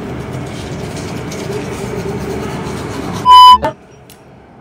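Toothbrush scrubbing teeth, a steady rasping, cut off about three seconds in by a short, very loud electronic beep, after which it goes quiet.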